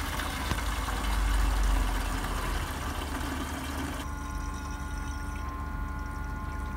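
Battery-powered kerosene transfer pump running, with kerosene rushing and pouring into the heater's fuel tank. About four seconds in the pouring noise drops away, leaving the pump motor's steady hum and whine.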